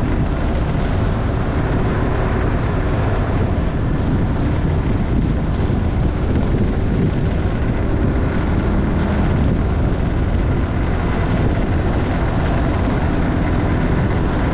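Motorcycle being ridden at a steady speed: the engine runs evenly, with no change in revs, under a dense rush of wind and road noise.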